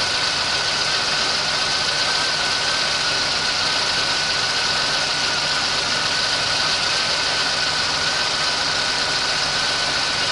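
1989 Oldsmobile Cutlass Supreme engine idling steadily while not yet fully warm, with a light tapping that the owner takes for piston slap. A thin, steady high whine runs alongside.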